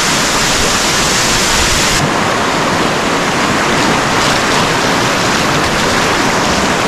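Loud, steady rush of fast whitewater close around a kayak running river rapids.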